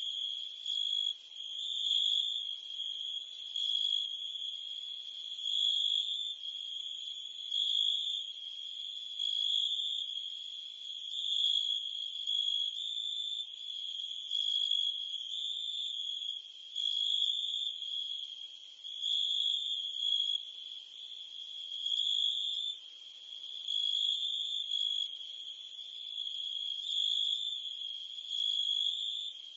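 Crickets and cicadas chirping together in a steady, high-pitched chorus that swells and eases about every two seconds.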